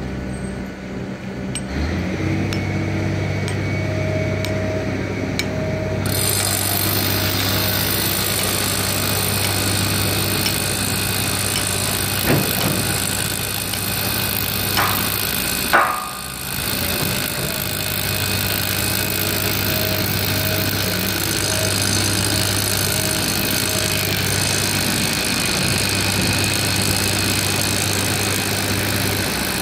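Heavy construction machinery engine running steadily, with a couple of short metallic knocks near the middle.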